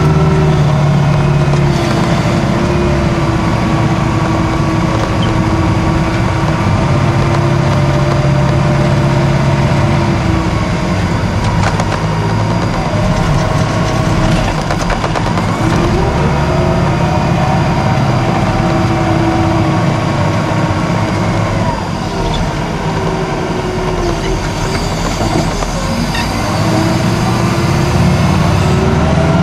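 Caterpillar IT28 wheel loader's diesel engine running under load, heard from inside the cab, its revs falling and climbing again several times as the machine works.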